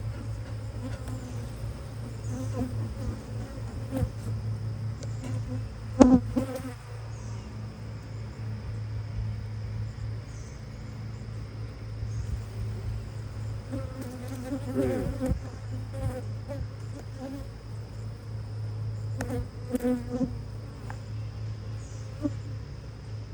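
Agitated honeybees buzzing steadily around a beekeeper opening their hive. A few knocks and clatters sound over the buzz, the loudest about six seconds in.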